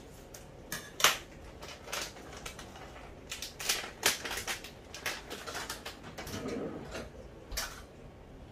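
Pot of oils simmering on the hob, giving irregular crackles and pops, the loudest about a second in.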